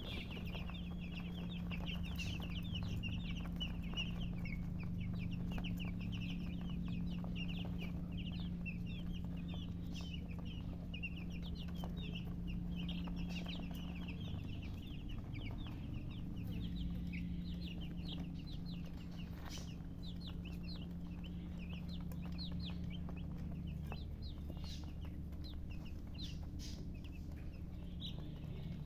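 A brood of baby chicks peeping constantly, many short high chirps overlapping, over a steady low hum.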